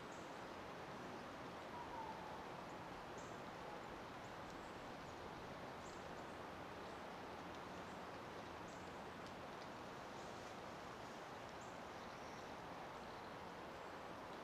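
Faint outdoor ambience: a steady hiss with short, high chirps from small birds every second or two.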